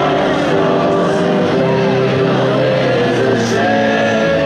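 Background music with steady held notes.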